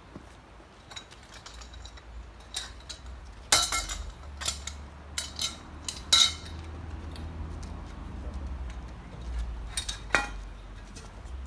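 Metal parts of a freestanding aerial rig (a quadripod) clanking and clinking as it is taken apart. There are scattered knocks, and the three loudest ring briefly: one about three and a half seconds in, one about six seconds in and one about ten seconds in.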